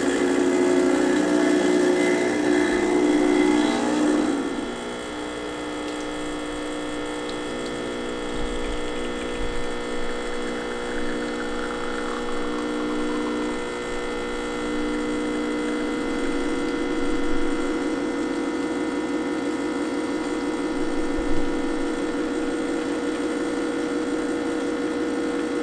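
Quickmill Silvano espresso machine's pump humming steadily while pulling a shot of espresso. About four seconds in, its tone drops and quietens, and about two-thirds of the way through it turns rougher and more fluttering.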